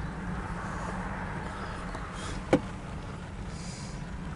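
Steady low rumble heard from inside a pickup truck's cab, with a single sharp click about two and a half seconds in.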